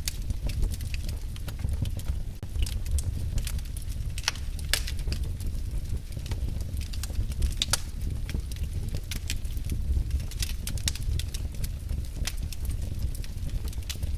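Wood fire burning in a fireplace, crackling with irregular sharp pops, several a second, over a steady low rumble.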